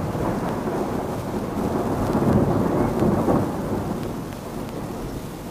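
A long roll of thunder, swelling to its loudest about two to three seconds in and then dying away, over steady rain.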